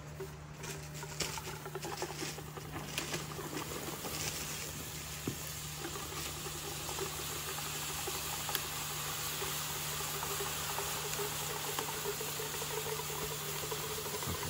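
Liquid nitrogen pouring from a dewar into a foam cooler and boiling off on contact: a patter of small crackles over the first few seconds that settles into a steady hiss.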